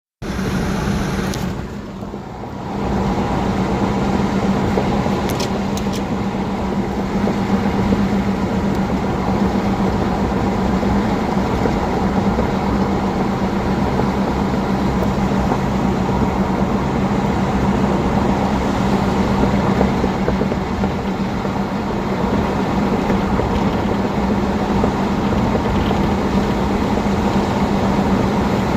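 A steady rushing noise with a constant low hum, dipping briefly about two seconds in.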